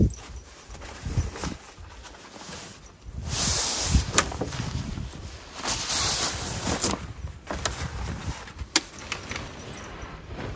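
Heavy canvas tent bags being dragged and shifted across a pickup's metal checker-plate bed: fabric rustling in two longer stretches, with a few sharp knocks and thumps.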